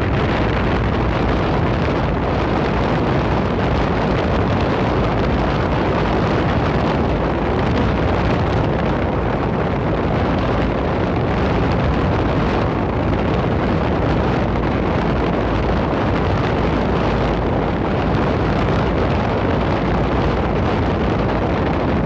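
A 2015 Lennox Elite 4-ton outdoor air-conditioner unit running, its ECM-driven condenser fan pushing air past the microphone as a loud, steady rush. The Copeland scroll compressor is barely heard beneath the fan.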